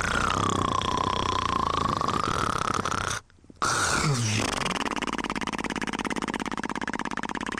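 A person snoring in their sleep: a whistling breath whose pitch dips and rises, a short break about three seconds in, then a deep, fast-rattling snore.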